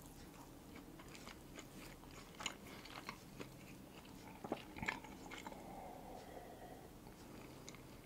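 Faint close-up mouth sounds of eating and drinking: soft wet clicks of chewing and finger-licking, then sips and swallows of hot chocolate from a glass about halfway through.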